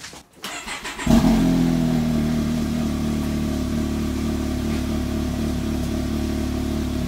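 A Can-Am Maverick X3's turbocharged three-cylinder Rotax engine starting about a second in with a brief flare, then settling into a steady idle.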